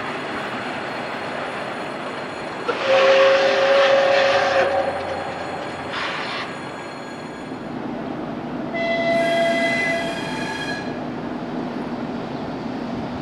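Steam locomotive of the Soviet L class running past with a steady rumble. A loud steam-whistle blast sounds about three seconds in, with a short burst of sound near six seconds. A second, higher-pitched blast follows for about two seconds near the ten-second mark.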